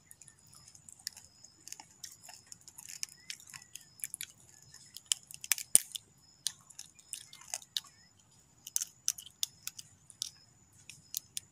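Live freshwater crab's shell being cracked and pried off with the fingers: a scatter of small, irregular cracks and clicks, with one louder snap about five and a half seconds in.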